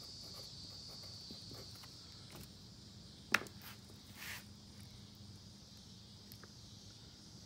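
Faint workbench sounds: a single sharp click about three seconds in, then a brief scratch of a pencil writing on paper about a second later, over a steady high hiss that fades about halfway through.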